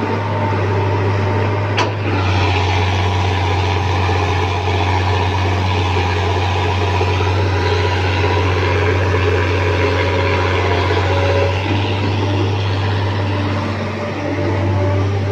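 Diesel engines of a tracked excavator and a dump truck running steadily while the excavator loads soil into the truck, a deep continuous hum. A single sharp click about two seconds in.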